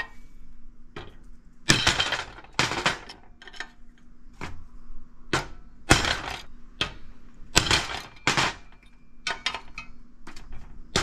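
A small sledge hammer striking steel centering punches seated in the holes of a jack's aluminum side plate, marking hole centres on a steel plate clamped beneath. About a dozen sharp metallic strikes, each with a brief ring, spaced roughly half a second to a second apart, with several lighter taps near the end.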